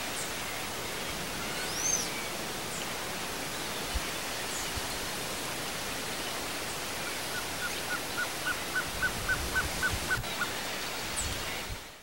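Blue-crowned trogon song: a row of about a dozen short hooting notes, about four a second, growing louder and then stopping, over a steady hiss of outdoor background noise. A higher bird chirp sounds about two seconds in.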